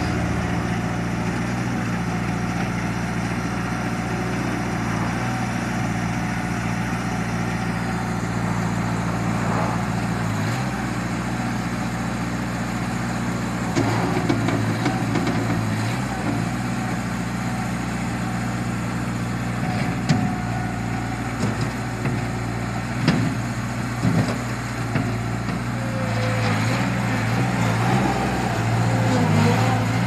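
Small wheel loader's engine running steadily as the machine drives and works its bucket, its note shifting a few times. A few sharp knocks come in the second half.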